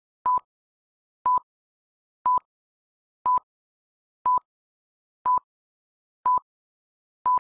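Film-leader countdown beeps: a short, high, single-pitched electronic beep once a second, with silence between the beeps.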